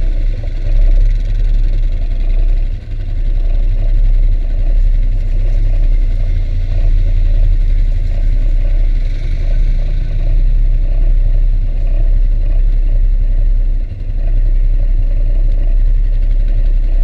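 ATV engines idling with a steady low rumble.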